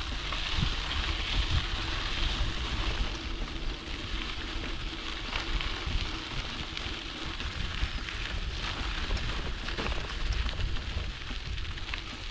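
Wind rushing and buffeting over the microphone of a moving bicycle, a deep gusty rumble with a steady hiss over it.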